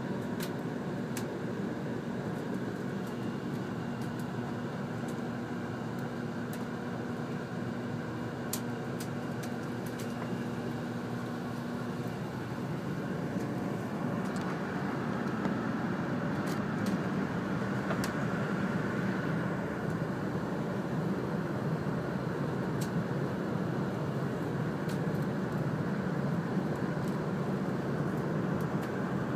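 Cabin running noise of a Series 100 Shinkansen train: a steady rumble of wheels on rail. A hum in it stops about twelve seconds in, after which the running noise gets a little louder. A few faint clicks come through.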